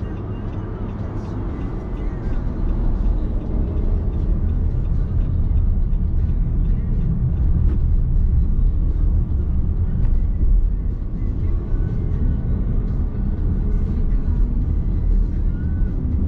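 Driving noise inside the cabin of a Nissan X-Trail Hybrid under way: a steady low rumble of road and tyre noise, which grows louder about two seconds in and then holds.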